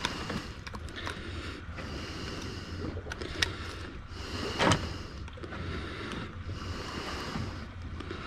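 Small metal clicks and knocks as pliers work a wire stinger rig's treble hooks out of a barracuda's mouth, with a louder knock about four and a half seconds in. Under them run a steady low hum and the hiss of wind and sea.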